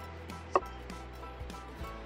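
Background music with a steady beat, with a sharp hit about half a second in.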